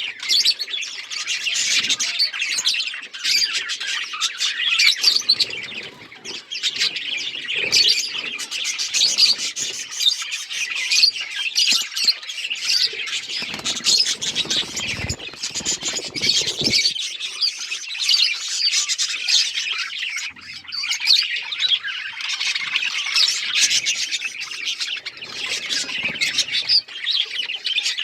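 A flock of small Australian parrots chattering and chirping together in a dense, continuous chorus of overlapping calls. A low rumble joins in for a few seconds around the middle.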